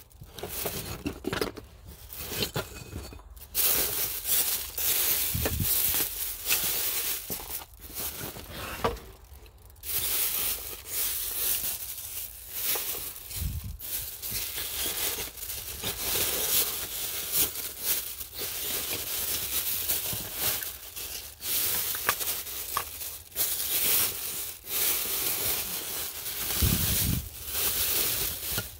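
Thin plastic bags crinkling and rustling as they are pulled and handled, with a few dull thumps of parts being shifted.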